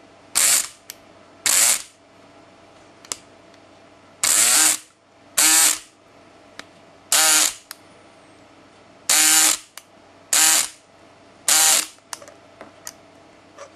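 Electric pick gun buzzing in the keyway of a Master 575 brass padlock, run in eight short bursts of about half a second each, its pitch bending as the motor spins up and down. Faint clicks come from the lock and tension wrench between bursts.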